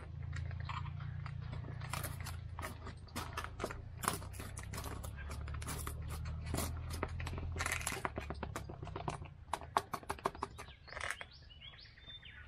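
Foil freeze-dried meal pouch crinkling as its zip seal is opened and the rehydrating food is stirred with a spoon: a run of quick crackles, clicks and scrapes, with a low rumble underneath that fades about eight seconds in.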